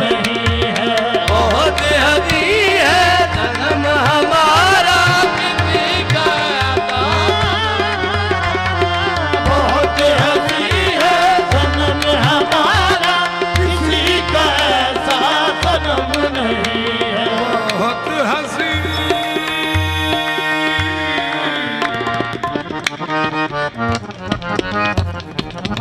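Qawwali instrumental passage: tabla drumming under a harmonium melody, with held harmonium chords in the second half.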